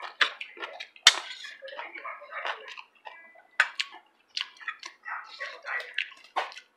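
Spoons clinking and scraping against ceramic bowls during a meal: a run of irregular light clicks, with one sharper clink about a second in.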